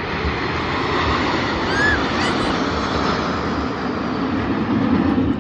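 Aircraft flying over, a steady rushing noise that swells about two seconds in and again near the end.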